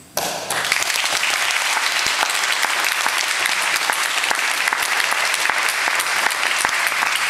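Audience applauding, starting abruptly just after the start and going on steadily.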